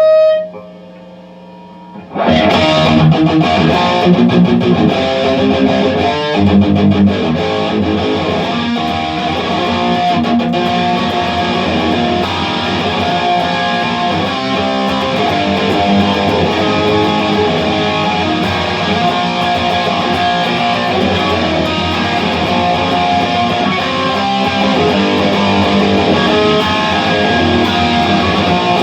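Electric guitar played through distortion: one ringing note at the start, then about two seconds in, continuous loud distorted playing.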